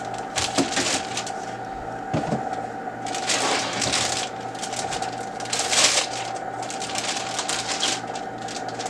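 Crinkling and rustling of a foil anti-static bag as it is handled and opened and a printer drum unit is pulled out of it, in irregular bursts, the loudest about three and a half and six seconds in.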